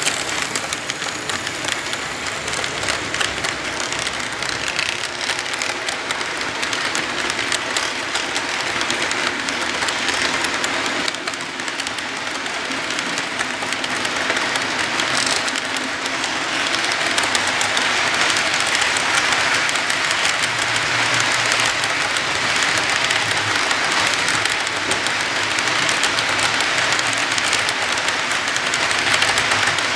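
Model freight cars' metal wheels rolling over the track as a long model train passes, a steady rushing rattle that grows a little louder about halfway through.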